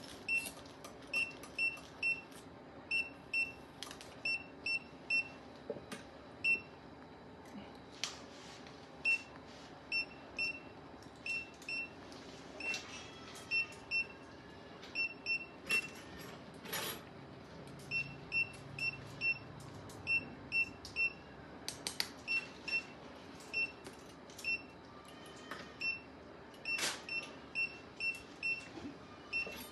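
Surgical patient monitor beeping in time with an anaesthetized cat's heartbeat: a short high beep about three times a second, in runs broken by brief gaps. Occasional sharp clicks come through as well.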